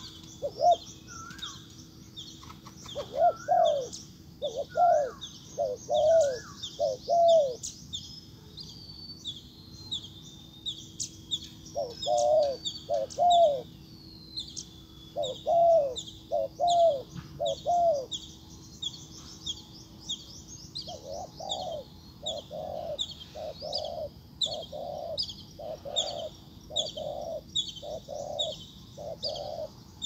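Spotted dove cooing in short repeated phrases, in several runs with pauses; the last run is a steady series of about one coo a second. A small bird chirps quickly and continuously in high notes over it, with a faint steady hum underneath.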